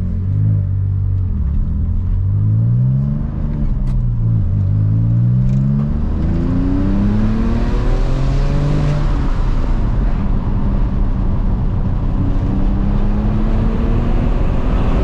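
Porsche 996 Turbo's twin-turbo flat-six pulling hard under acceleration for a boost test, its pitch climbing through the revs and dropping at each gear change before climbing again.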